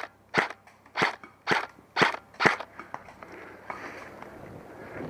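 Airsoft gun firing single shots, six sharp cracks about two a second, stopping about two and a half seconds in; after that a steady low rustling noise.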